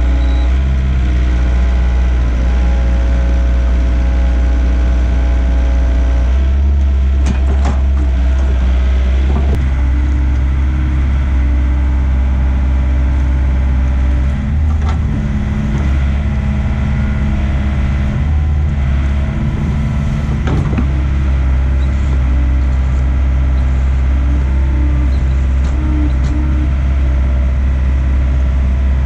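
Mini excavator's diesel engine running steadily while it digs, with a few sharp knocks from the bucket and boom. The engine note dips briefly a couple of times midway.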